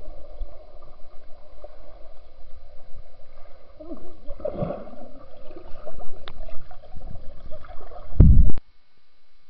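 Swimming-pool water heard from under the surface: muffled bubbling and sloshing as swimmers move around the microphone, with small knocks throughout. Just past eight seconds a loud, low rush of water lasts about half a second and cuts off suddenly.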